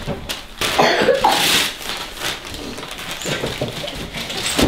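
Gift wrapping paper tearing and rustling in irregular bursts as a present is unwrapped, loudest about a second in.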